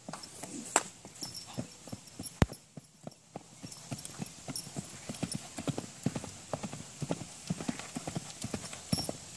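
Hoofbeats of a Quarter Horse mare cantering loose on the dirt of a round pen, a rapid run of hoof strikes that dips briefly about three seconds in. Two sharp clicks, about one and two and a half seconds in, are the loudest sounds.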